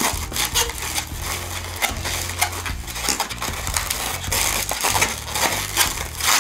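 Long latex twisting balloon being twisted and folded by hand, its inflated loops squeaking and crackling against each other in a dense, continuous run.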